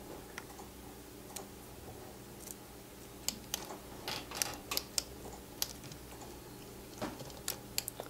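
Soldering iron tip working the solder joints of a keyboard switch: small, irregular clicks and crackles as the tip scrapes and taps on the pins and plate, thickest about halfway and again near the end, over a faint steady hum.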